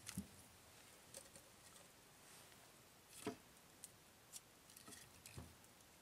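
Faint, scattered knocks and clicks, a handful spread through a few seconds: wood and embers being shifted about inside the firebox of a small sheet-metal wood stove.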